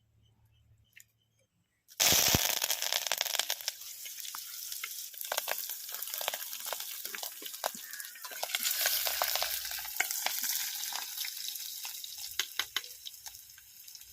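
Food going into hot oil in a cooking pot: a sudden loud sizzle about two seconds in, then steady frying full of crackles and spits that eases somewhat near the end.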